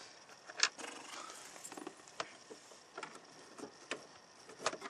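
Scattered sharp clicks and light scraping of a screwdriver working on the plastic interior door panel and trim of a 1995-99 Chevy truck door.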